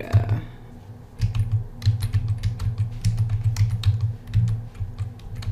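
Typing on a computer keyboard: a run of quick keystrokes, which stop for most of a second near the start before carrying on.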